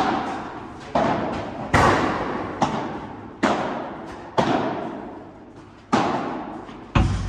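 Padel rally: about seven sharp pops of rackets striking the ball and the ball bouncing, roughly one a second. Each pop rings out in the long echo of a large indoor hall.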